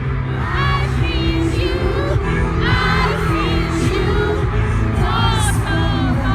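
A K-pop song heard at a live concert: singing over a steady beat and bass, with the crowd cheering and screaming along.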